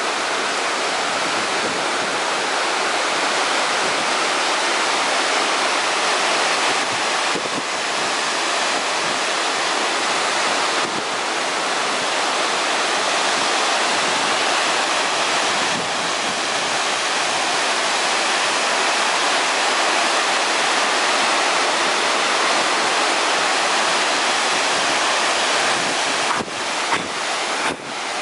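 Large waterfall's steady rush of water pouring over a broad rock face and crashing onto the rocks below. It dips briefly a few times near the end.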